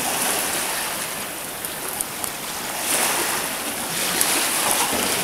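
A person wading through shallow open water, legs splashing, over a steady rushing wash of water noise; the splashing grows louder in the second half.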